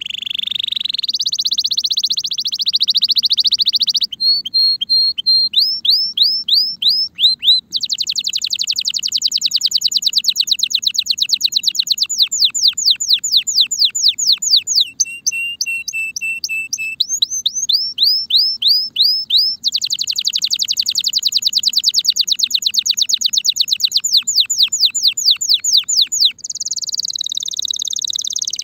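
A Spanish Timbrado canary singing a long unbroken song: fast trills changing speed from phrase to phrase, runs of separate rising notes, a lower rolling trill about halfway through, and a buzzy high phrase near the end. This is the full song of a male in breeding condition.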